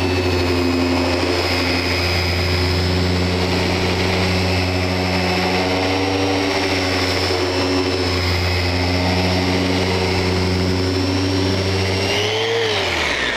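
Festool Rotex random orbit sander running steadily under load, sanding a wood block with 120-grit paper after being started on the work. About twelve and a half seconds in it is lifted off: its pitch rises briefly, then falls as it is switched off and winds down.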